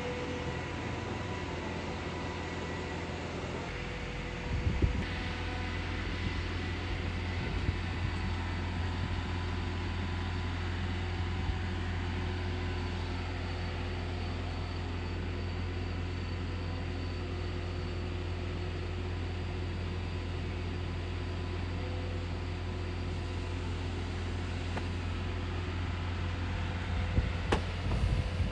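Air conditioner outdoor unit running with a steady low hum and a faint constant whine. A few soft knocks come about four seconds in and again near the end.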